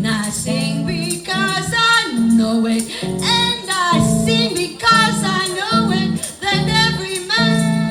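Live jazz band playing the song: a bending melodic lead line over steady, rhythmic bass notes.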